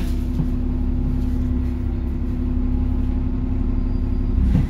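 Alexander Dennis Trident 2/Enviro 400 double-decker bus's diesel engine running steadily, heard from inside the passenger saloon, with a brief louder thump near the end.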